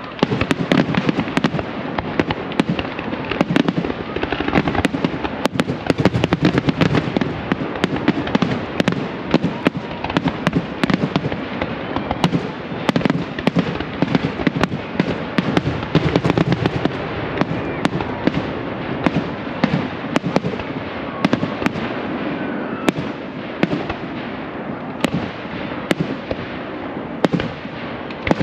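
Fireworks display in a dense, continuous barrage: aerial shells bursting in quick succession, many sharp reports a second over a constant rumbling din.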